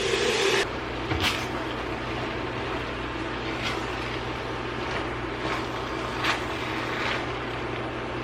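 A spoon stirring and scraping rice through a casserole mixture in a pan, with a few short scrapes over a steady hiss and low hum.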